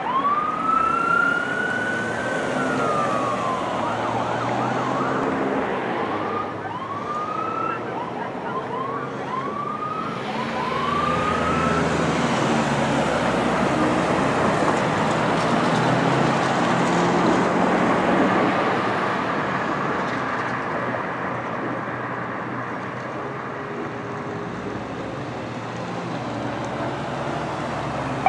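Ambulance siren: one wail that rises and falls, then a run of short rising sweeps. After that, for most of the rest, a steady rush of traffic noise with no clear siren tone.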